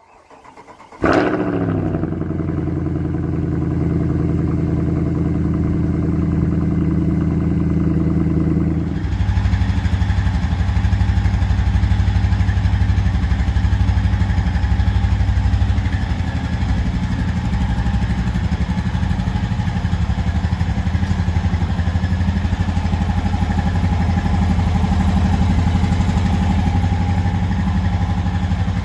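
Honda TRX 520 ATV's 518cc single-cylinder four-stroke engine starting about a second in, its pitch dropping quickly as it settles into a steady idle. About nine seconds in, the sound turns lower and heavier and then runs steadily.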